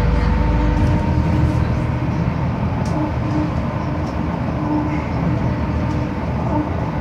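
Scania CN270UB city bus driving, heard from inside the passenger cabin: a steady drone of engine, drivetrain and road noise with a faint held whine on top. The deepest rumble eases about a second in.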